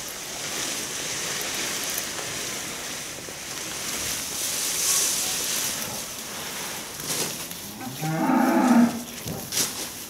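A cow moos once, one low call lasting about a second, about eight seconds in. Before it there is a steady rustle of leafy cut branches being dragged.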